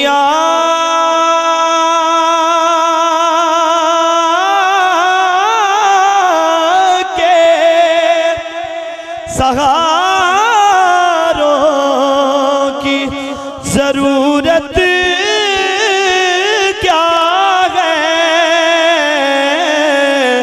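A man singing an Urdu naat solo into a microphone, drawing out one word of the line: one long steady note for about four seconds, then wavering, ornamented runs.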